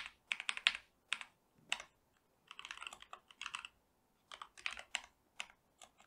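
Typing on a computer keyboard: quick runs of keystrokes in bursts, with short pauses between them.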